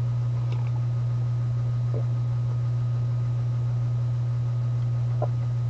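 A steady low hum, with two faint short sips from a ceramic mug of goat milk, one about two seconds in and one near the end.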